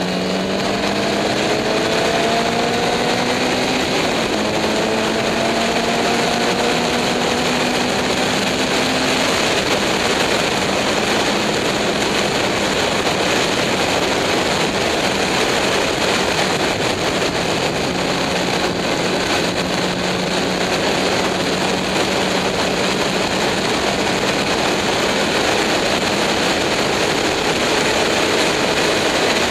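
Onboard sound of an open-cockpit race car's engine pulling hard at full throttle, its pitch rising steadily over the first several seconds and then held at high revs. A dense, steady rush of wind and engine noise covers the rest.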